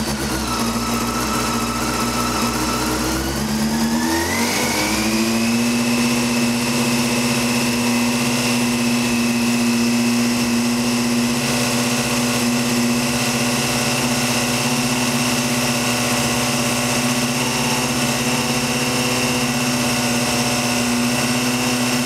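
Motorcycle engine running steadily. About four seconds in, its revs rise and are held at a higher, even speed, then drop back near the end. The engine is being run up to warm up and heat the exhaust.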